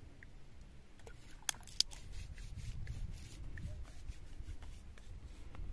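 Two sharp clicks about a third of a second apart, followed by a few fainter ticks and low rustling handling noise.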